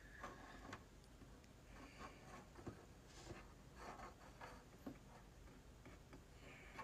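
Near silence: room tone with faint, scattered small taps and soft rustles.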